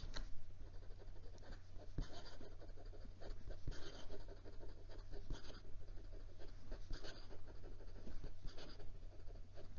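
Steel nib of a HongDian 525 fountain pen scratching across notebook paper in quick cursive strokes, an irregular run of short scratches. The pen writes wet, with no skips.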